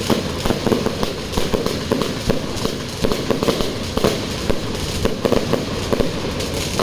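A 128-shot consumer firework cake firing: a rapid, uneven run of shots, several a second, over a steady rushing noise.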